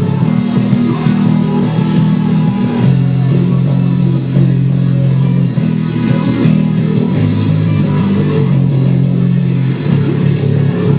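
Electric bass guitar playing a rock bass line of low sustained notes, with a full rock band sounding along with it.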